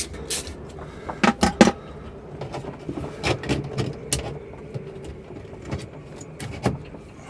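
Metal clinks and knocks as the diesel heater's exhaust pipe is handled and fitted onto its muffler: scattered sharp taps, a few ringing briefly, the loudest cluster about a second and a half in.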